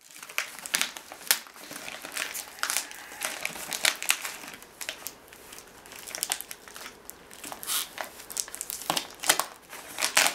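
Clear plastic packing tape being peeled and torn off a cardboard box by hand, crinkling and crackling in a run of irregular sharp bursts that are loudest near the end.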